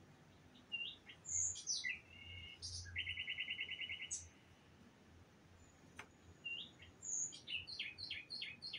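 A songbird singing: varied high chirps and whistles, with a fast trill about three seconds in and a quick series of notes near the end.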